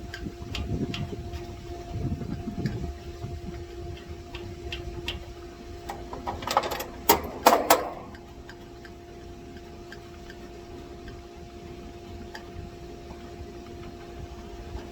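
A steady hum runs throughout, with scattered light clicks and ticks, typical of hand-tool work on the unit. A short cluster of louder clicks and knocks comes about six to eight seconds in.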